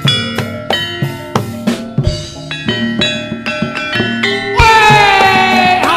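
Javanese gamelan playing jaran kepang dance music: quick hand-drum strokes over ringing struck-metal tones. About four and a half seconds in, a loud held high note comes in over the ensemble.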